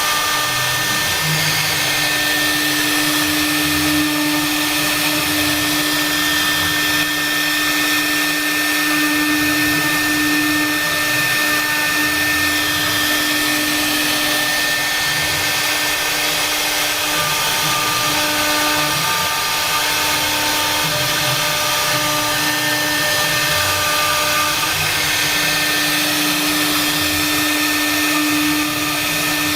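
CNC router spindle running steadily with a continuous whine while its bit carves a half-round workpiece.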